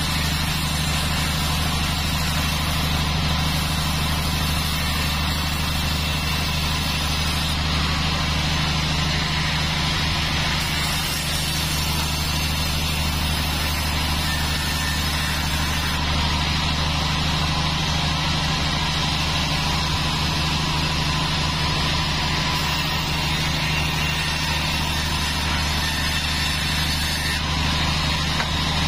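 A 36-inch band saw running steadily with a loud low drone, its blade sawing through a teak log.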